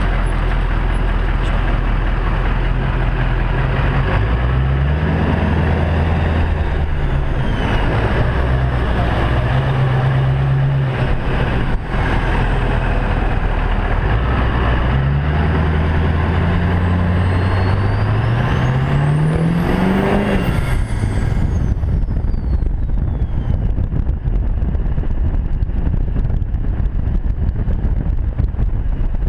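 2001 LB7 Duramax 6.6-litre V8 turbodiesel through a 4-inch straight pipe, pulling hard with its pitch climbing and dropping back at each upshift. Its stock turbo whistles as a high whine that climbs steeply about two-thirds of the way in and falls away as the throttle comes off, after which the engine drops to a steady cruise under wind noise.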